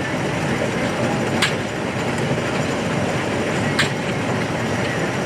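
Steam-powered sawmill machinery running steadily, with two sharp clicks about two seconds apart.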